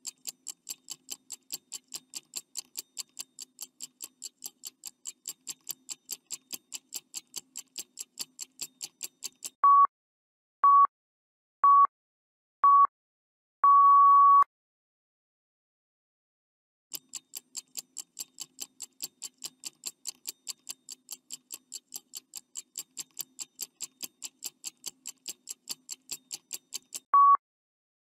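Countdown-timer sound effect: a stopwatch ticking about four times a second, then four short beeps a second apart and a longer final beep as time runs out. After a few seconds of silence the ticking starts again and gives way to short beeps near the end.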